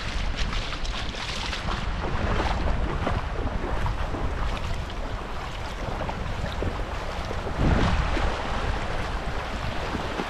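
Rushing meltwater of spring runoff, a steady noisy wash, with wind rumbling on the microphone that swells about three-quarters of the way in.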